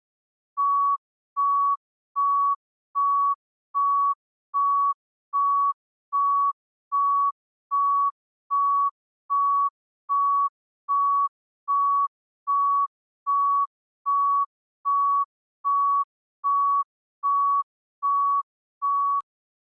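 Heart rate monitor beeping at a steady pulse: one short, mid-pitched beep repeated evenly, about five beeps every four seconds, stopping shortly before the end.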